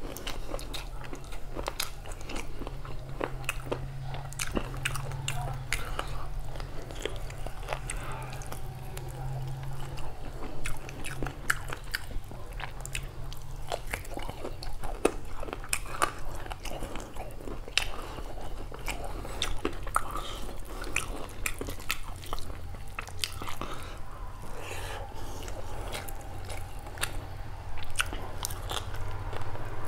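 Close-up chewing and mouth sounds of a person eating beef curry and rice by hand: wet smacks and sharp clicks at an irregular pace, with no talk.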